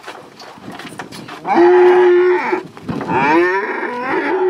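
Cattle mooing loudly: one long moo about a second and a half in, then another call starting about three seconds in that breaks briefly and runs on.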